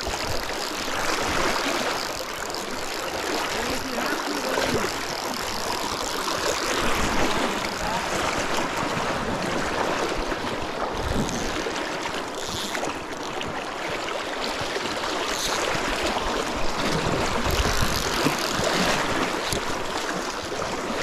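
Fast-flowing shallow creek water rushing steadily over gravel, with some wind on the microphone.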